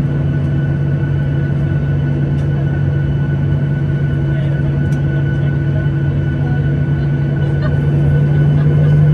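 Boeing 737-800's CFM56-7B turbofan engines heard from inside the cabin over the wing: a steady hum at low thrust while the aircraft taxis, getting louder near the end.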